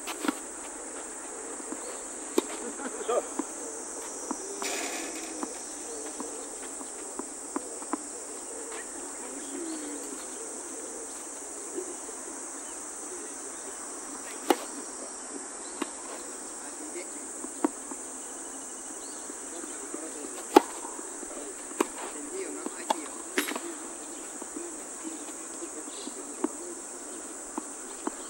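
Tennis ball being hit back and forth with rackets: sharp, separate pops every few seconds, the loudest about twenty seconds in. Under them is a steady high drone of insects in the surrounding trees.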